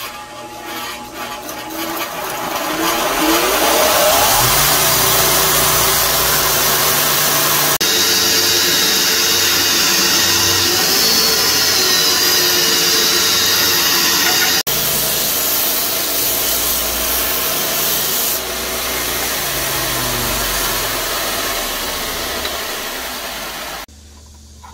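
Belt grinder running with wooden knife handle scales pressed against the abrasive belt: a steady, loud grinding hiss over the motor's low hum. The tone changes abruptly a few times, and the sound cuts off about a second before the end.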